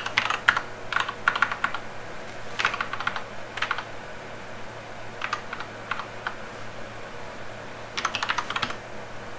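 Typing on a computer keyboard: quick runs of keystrokes in several short bursts, with pauses between them.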